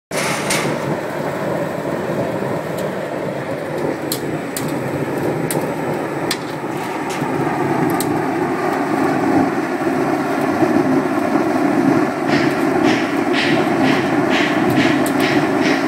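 Small sawdust burner firing: a steady rushing noise of the flame jet blowing out of its nozzle, with scattered sharp crackles. The rush grows louder about halfway through, and the crackles come more often near the end.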